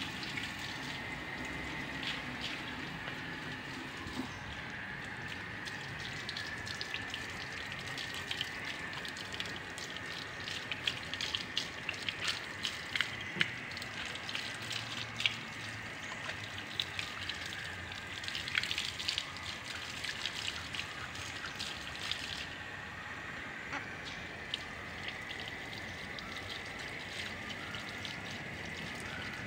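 Garden hose running, water spraying and splashing onto a dog's wet coat and the concrete underfoot during a bath, steady throughout, with scattered sharp splashes and drips that are thickest in the middle stretch.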